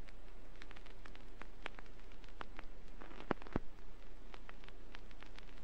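Vinyl record surface noise from a record player: a steady hiss with scattered crackles and pops, a few louder pops a little past the middle, over a low steady hum.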